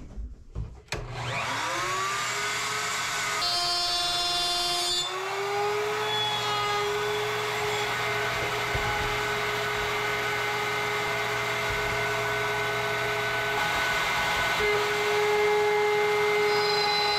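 Table-mounted wood router starting up about a second in, its whine rising to a steady high-speed run while a spline slot is routed in a wooden board fed along the fence.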